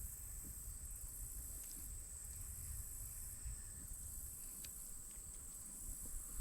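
Steady, high-pitched insect chorus droning without a break, over a faint low rumble, with a few light clicks.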